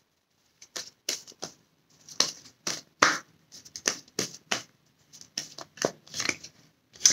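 A deck of oracle cards being shuffled and handled: an irregular run of short snaps and swishes.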